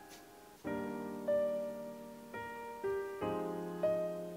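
Background piano music: six slow, separate notes or chords, each ringing and fading before the next.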